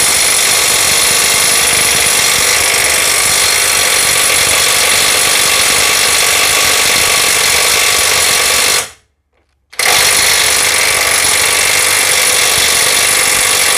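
Bull BL800NM cordless brushless impact wrench hammering without a break on a nut tightened to 1140 Nm. It stops for under a second about nine seconds in, then hammers again. The nut does not break loose: the load is beyond what the wrench, rated at 800 Nm, can manage.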